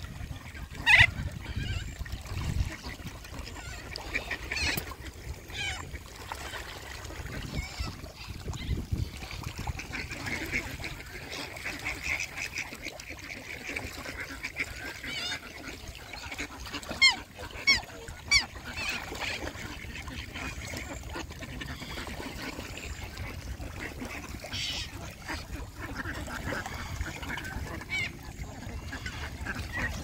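Geese honking, with ducks quacking, in scattered calls; a loud call about a second in and three loud calls in quick succession a little past halfway.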